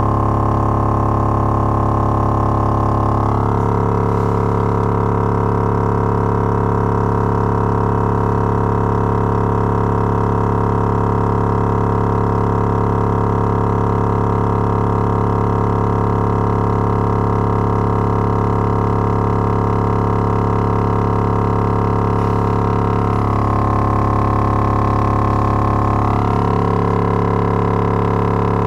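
Logitech Z5500 subwoofer driver, out of its cabinet in free air, playing a continuous 35 Hz test tone as a stress test, its cone moving at large excursions: a steady, loud droning buzz rich in overtones. The tone shifts slightly near the start and again about 23 seconds in.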